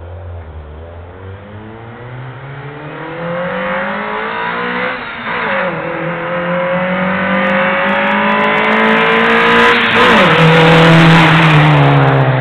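Honda Civic's D15B SOHC VTEC four-cylinder, on a 2.25-inch exhaust run without a muffler silencer, accelerating hard through the gears: the engine note climbs, drops at an upshift about five seconds in, climbs again and drops at a second upshift about ten seconds in. It grows louder as the car comes toward the microphone.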